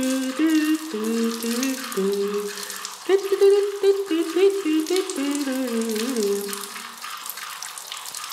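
Background music: a slow melody of held notes stepping up and down, over a steady hissing noise.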